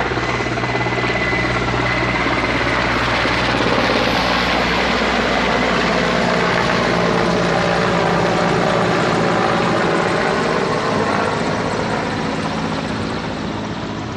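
Mi-17V5 helicopter flying past overhead, its rotor and turbine engines loud and steady. The sound swells through the middle, the pitch bending as it passes, then fades over the last few seconds.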